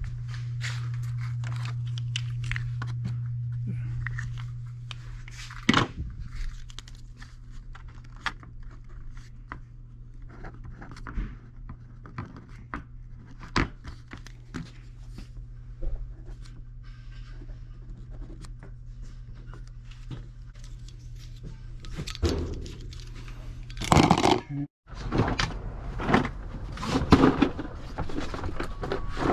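Scattered knocks, clicks and rustles of things being handled, over a low steady hum that is loudest for the first four seconds and then fades. The knocking gets busier and louder near the end.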